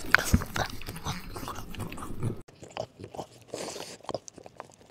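French bulldog licking and sniffing close to a clip-on microphone: a quick run of wet clicks and snuffles.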